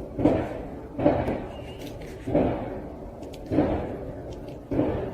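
A series of five heavy thuds or slams, about one every second and a quarter, each dying away before the next.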